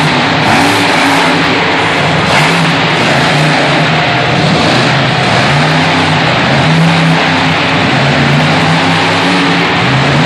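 Monster truck engine revving hard and easing off again and again as the truck runs across the dirt, loud throughout.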